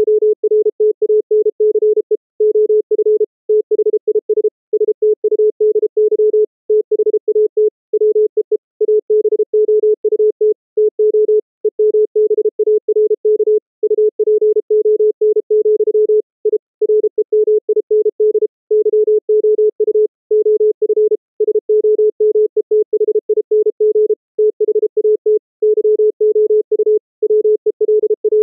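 Morse code keyed as a pure sine-wave CW tone at a single steady pitch, the output of a software bandpass filter and LO-mixer that turn a keyed 555-timer square wave into a clean sine with soft raised-cosine edges. The tone comes in quick dits and dahs with short gaps between characters.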